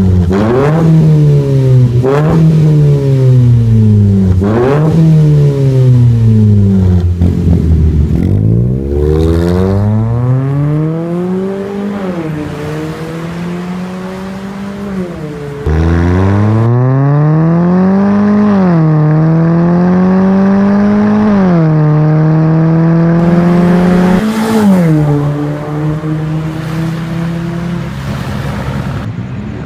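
Ford Fiesta engine through an aftermarket full exhaust system with dual tips. It is first blipped three times, each rev rising sharply and falling back, then revved more slowly. After a sudden cut it accelerates through the gears, the pitch climbing and dropping back at each upshift about three times.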